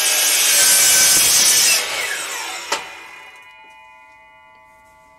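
DeWalt sliding miter saw cutting through the handle of a 4-lb hammer with a loud, even grinding noise that stops about two seconds in. The blade then winds down with a falling whine and a sharp click, leaving a ringing hum that fades away.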